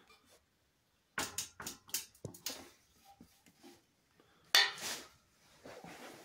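A few sharp metallic clinks and knocks from handling around a steel engine frame: a cluster between one and two and a half seconds in and a louder knock at about four and a half seconds.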